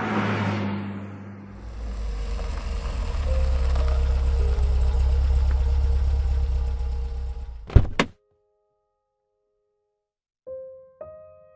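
Car driving with a low engine and road rumble that swells and then fades, ending in a sharp double thunk about eight seconds in. After a moment of silence, a few ringing music notes start near the end.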